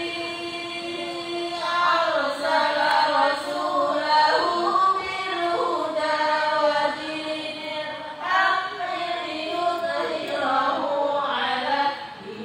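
Melodic Islamic recitation chanted in long, held notes that waver up and down, in phrases with short breaks between them.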